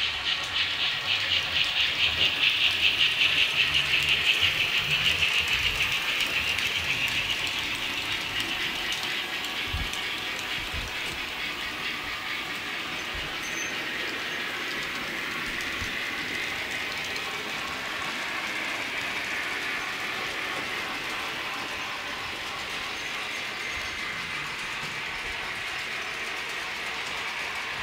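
TT-scale model trains running on a layout, a model steam locomotive among them, with a fast rhythmic beat that is loudest over the first several seconds and then settles into a steadier, quieter running sound.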